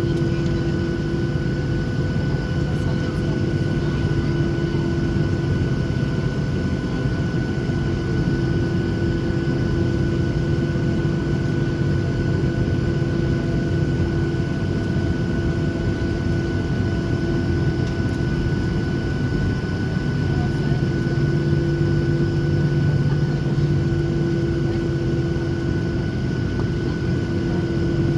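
Boeing 737-800's CFM56-7B jet engines running at idle, heard inside the cabin as a steady hum with a constant whine over a low rumble.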